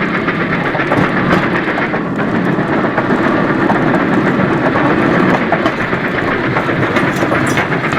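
Train running along the track: a steady, dense noise with no breaks.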